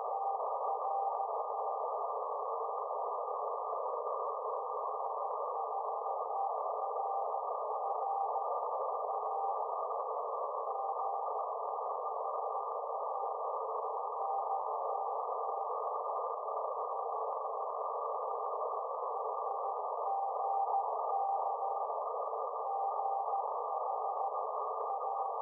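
Faint Morse code (CW) tone, keyed on and off at one steady pitch, from a 432 MHz moonbounce (EME) signal, buried in the steady hiss of a radio receiver's narrow audio passband.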